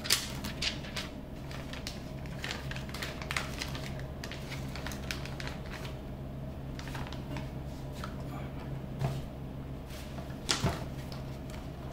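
Scattered light clicks and rustles of small kit parts being handled, over a steady low hum.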